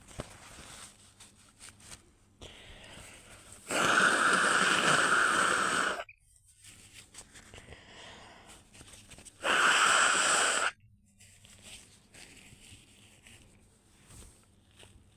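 A person's loud, wheezy breaths: a long one of about two seconds starting about four seconds in, then a shorter one near ten seconds in, each cut off sharply, with softer breathing between.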